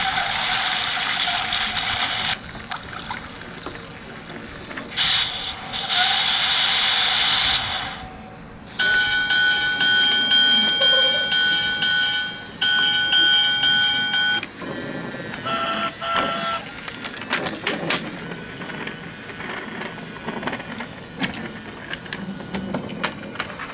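Electronic sound effects from a BRIO Smart Tech battery train's built-in speaker, set off by the roundhouse's action tunnels. There are two bursts of hissing, a run of steady beeping, chiming tones, and one short tone. Light clicks and clatter of the toy trains running on the plastic and wooden track come near the end.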